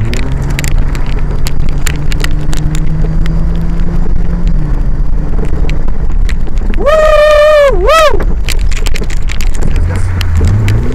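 Jeep Cherokee XJ engine running steadily as the 4x4 drives over a rough muddy track, with frequent knocks and rattles from the bumpy ground. About seven seconds in a person lets out a loud shout lasting about a second, followed by a short second cry.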